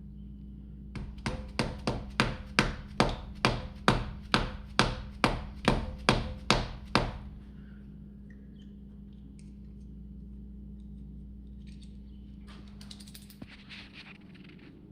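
About fifteen hammer blows at about two and a half a second, each with a short metallic ring, tapping a press-in -8 AN breather fitting home into its port. A brief rustle follows near the end.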